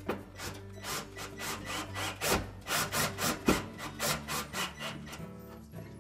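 Cordless drill/driver turning a screw into the sheet-metal bracket of an oven's broil element, a quick uneven run of short grating strokes, several a second, thinning out near the end as the screw is left snug but not tightened. Background music runs underneath.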